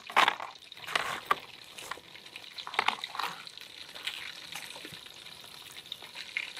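Food being packed: fries dropped into a foam takeaway box with metal tongs and a plastic sauce cup set into the box. A handful of short scrapes and rustles in the first three and a half seconds, then a faint steady hiss.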